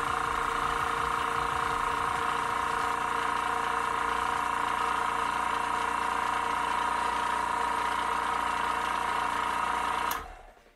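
Gaahleri GT-918 airbrush compressor motor running with a steady electric hum while it fills its air tank. It shuts off with a click near the end.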